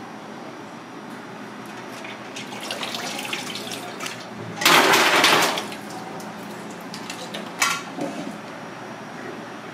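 Water poured out of a stainless steel bowl into a steel sink, a loud gush lasting about a second, after a few seconds of softer splashing. A brief splash follows a couple of seconds later.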